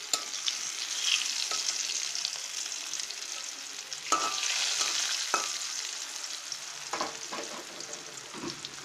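Spice-coated sweet pumpkin slices shallow-frying in hot oil, sizzling steadily. A spatula scrapes and taps against the pan a few times as the slices are turned.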